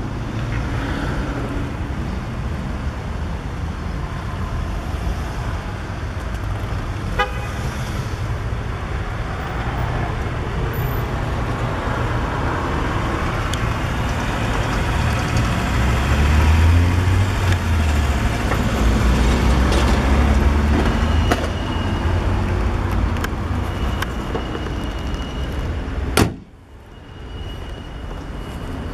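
Honda D14A2 1.4-litre four-cylinder engine of a 1996 Civic running steadily in the open engine bay. About 26 seconds in there is a sharp bang, after which the engine sounds much quieter.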